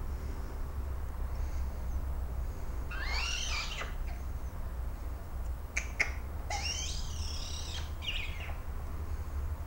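Hand-reared fledgling Eurasian magpie giving harsh, raspy begging calls as it is hand-fed: one call about three seconds in, then a run of calls from about six to eight and a half seconds. A steady low hum lies underneath.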